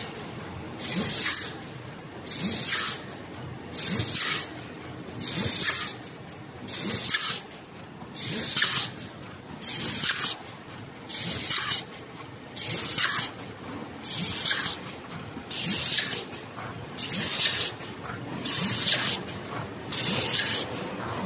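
PP woven bag cutting-and-sewing line machine running through its cycle: a short sharp hiss of air about every one and a half seconds, over a steady mechanical running noise with faint knocks.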